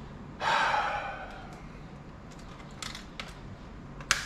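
Plastic laptop parts of a ThinkPad being worked and pried apart by hand: a short scraping rush about half a second in, then several small sharp clicks, the sharpest near the end.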